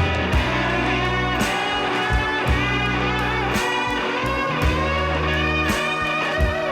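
Background rock music, an instrumental passage with electric guitar, bass and drums.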